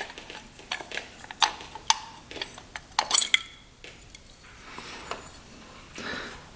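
Small metal clicks and clinks as an ATV carburetor is handled and its float bowl taken off, with a quick cluster of louder clicks about three seconds in.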